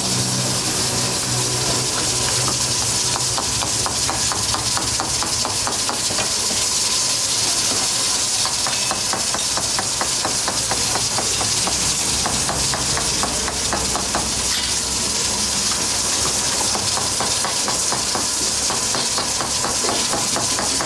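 Steady hiss of steam and gas burners from woks of mutton karahi boiling alongside pressure cookers, with a fast, even knocking through the middle stretch and again near the end.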